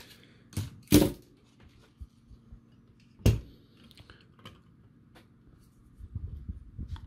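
Handling noises at a soldering bench: a few sharp knocks and clicks, the loudest about a second in and just after three seconds, then a short rustle near the end.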